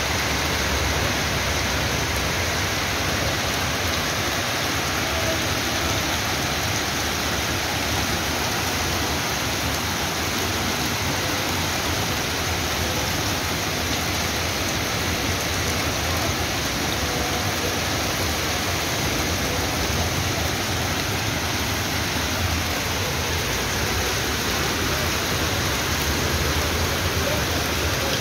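Heavy rain mixed with hail pouring down in a steady downpour.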